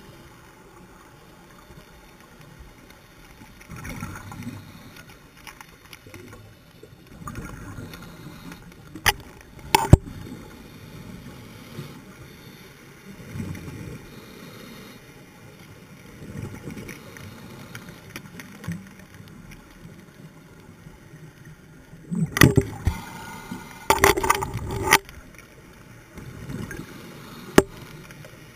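Muffled underwater sound through a camera's waterproof housing: a scuba diver breathing through a regulator, a gurgling rush of exhaled bubbles swelling every few seconds. A few sharp clicks cut through, two close together about a third of the way in and a cluster later on.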